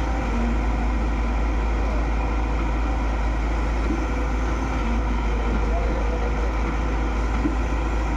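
Excavator's diesel engine running steadily with a low rumble, and faint voices now and then in the background.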